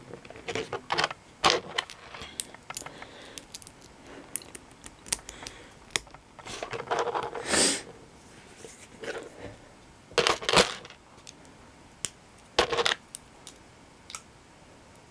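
Small plastic LEGO pieces clicking and clattering as they are handled and pressed together, in irregular sharp clicks with a few short bursts of rattling.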